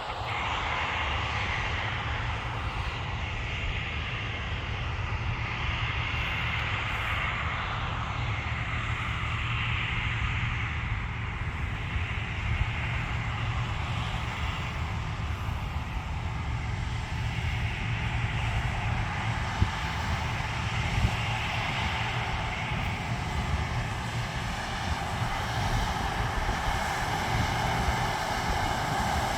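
Harvest machinery engine running steadily, a continuous mechanical drone with a deep rumble and no change in load.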